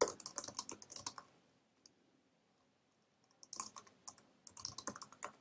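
Typing on a computer keyboard: a quick run of key clicks, a pause of about two seconds, then two more runs of clicks near the end.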